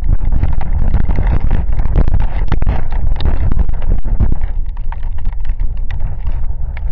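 Rainstorm: wind gusting on the microphone as a heavy low rumble under a hiss of rain, with many sharp ticks of raindrops hitting close to it.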